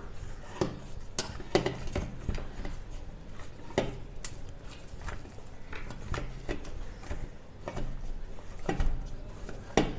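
Wheat-flour dough being kneaded by hand in a steel bowl: irregular soft knocks and clinks of hand, dough and bowl, a few each second, with a couple of sharper knocks near the end.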